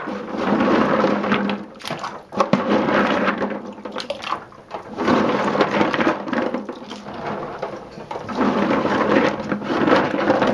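Black walnuts churned by gloved hands in a stainless steel sink full of water: sloshing water and the nuts knocking together, in surges every couple of seconds. The stirring brings up floaters, the empty nuts with no meat in them.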